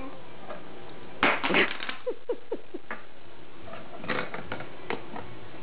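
A baby's noise-maker toy clicking and rattling as the baby handles it, with a loud burst of rattling about a second in, then a few short squeaks and scattered clicks.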